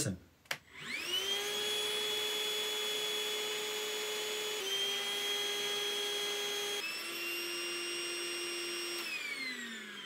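Milwaukee M18 compact handheld vacuum (0882-20) clicked on, its fan motor spinning up to a steady high whine. The pitch steps down twice as it runs on batteries with less charge, showing suction dropping with battery power. Near the end the motor winds down with a falling whine.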